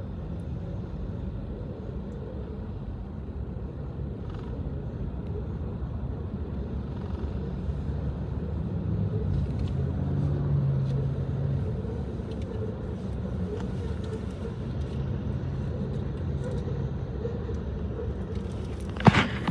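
Steady low rumble of road traffic and a passing freight train, heard from inside a stopped car, swelling a little about halfway through. One sharp knock near the end.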